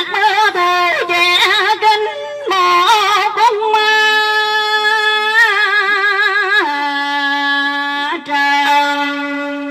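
A woman singing into a microphone with a wide vibrato over amplified backing music. About three and a half seconds in her voice stops and the music carries on in long, steady held notes.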